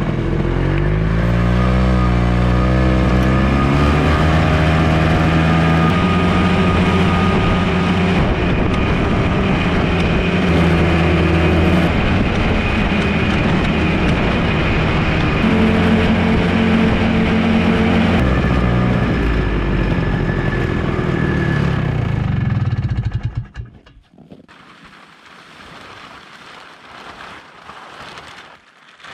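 Ski-Doo Tundra snowmobile engine pulling away, its pitch rising over the first few seconds, then running at steady speed with a few shifts in pitch as the sled travels over snow. It stops suddenly about 23 seconds in.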